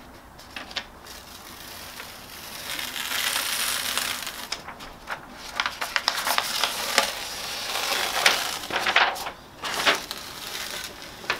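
Heat-transfer paper being peeled off a freshly pressed T-shirt: a crackling, crinkling paper rustle with sharp crackles, quiet at first and louder from about two seconds in.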